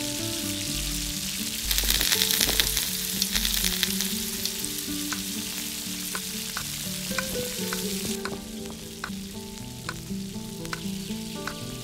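Hot oil and masala sizzling in a miniature steel kadai as whole boiled eggs go in and are turned with a small spoon. The sizzle swells about two seconds in and eases off after about eight seconds, with light clicks of the spoon against the pan.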